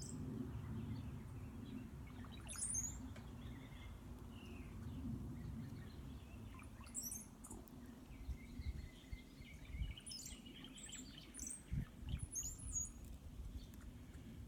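Birds chirping: short high calls and warbles every few seconds over a steady low rumble, with a few dull low thumps in the second half.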